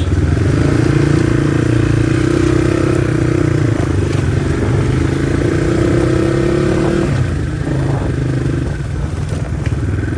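Crossfire RM250 dirt bike's engine running steadily under way, easing off and dropping in pitch about seven seconds in.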